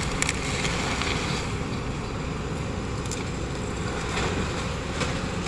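Excavator's diesel engine running steadily, with a few faint knocks over it.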